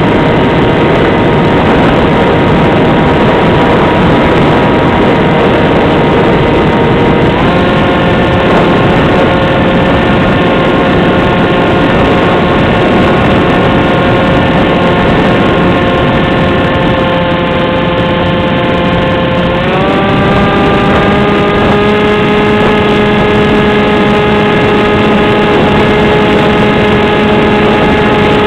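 AXN Floater Jet RC plane's electric motor and propeller running steadily under a rush of noise. The motor's whine steps up in pitch twice, about a quarter of the way in and again about two-thirds of the way in.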